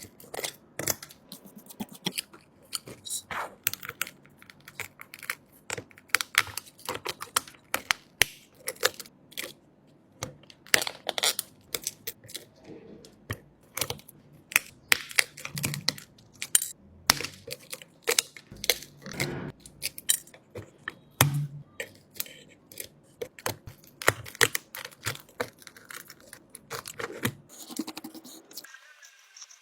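Irregular crackling and sharp clicks of hand tools scraping and picking at an iPhone 12 Pro Max's cracked back glass, with an occasional soft knock.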